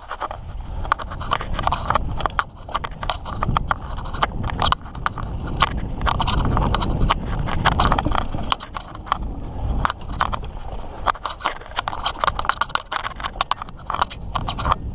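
Mountain bike riding over a rough dirt trail: a low rumble of tyres rolling, with rapid, irregular clicks and clatters from the bike jolting over rocks and roots, loudest about halfway through.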